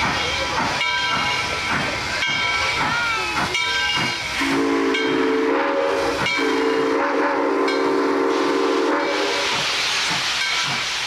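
Steam locomotive hissing steam as it arrives, with one long chime whistle blast starting about four seconds in and lasting about five seconds, its pitch wavering briefly as it is blown. High ringing tones sound over the hiss before the whistle.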